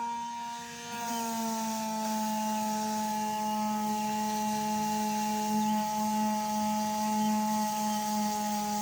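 Electric power sander running steadily with a pitched motor hum; it dips briefly near the start, then settles to a steady pitch after about a second.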